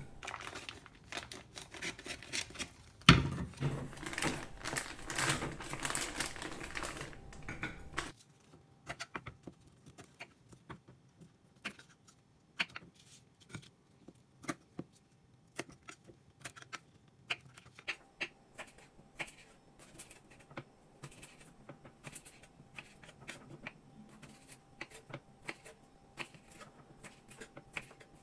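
Light clicks and taps from kitchen work, dense and busier for the first eight seconds with one sharp knock about three seconds in, then thinning to scattered single clicks.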